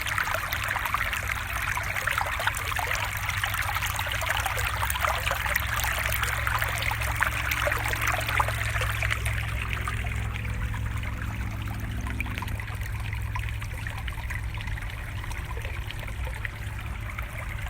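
Running stream water, a steady trickling and babbling with a low rumble beneath it.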